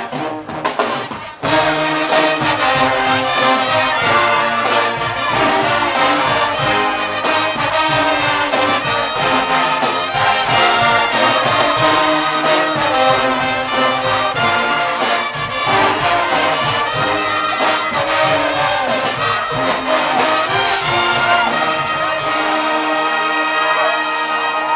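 Guggenmusik band playing live: loud brass (trumpets, trombones and sousaphones) over a drum kit, cymbals and bass drum. After a short break in the first second and a half, the full band comes back in and plays on steadily.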